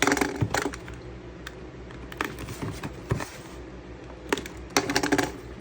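Sealed packaging being torn open by hand: crinkling and clicking in three bursts, at the start, a couple of seconds in and near the end.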